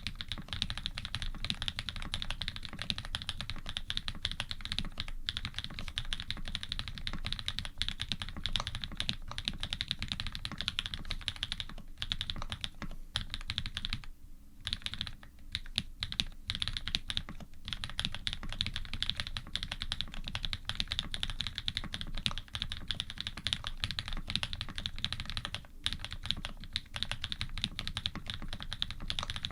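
Continuous fast typing on an Iron180 custom mechanical keyboard with lubed switches built from Cherry housings and Cream stems, in a carbon plate with foam, under GMK Monochrome keycaps. There is a short pause about fourteen seconds in, and briefer breaks near eighteen and twenty-six seconds.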